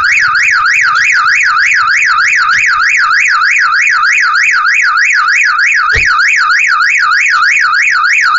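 Car alarm siren going off, set off as the car door is opened: a loud, fast up-and-down wail, about three sweeps a second. A single thump sounds about six seconds in.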